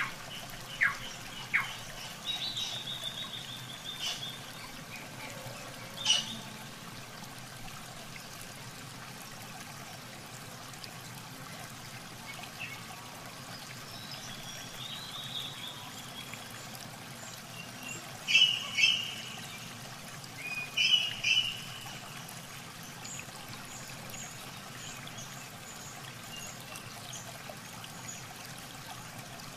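Steady trickle of running water, with birds chirping over it: a quick high trill a few seconds in and a few short, sharp calls about two-thirds of the way through.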